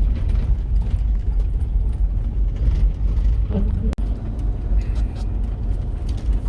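Chevy Astro van driving on a snowy road: a steady low engine and road rumble, which drops out for an instant about four seconds in.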